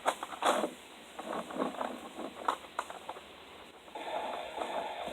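A run of irregular short crunching and rustling noises, with a steadier hiss coming in about four seconds in.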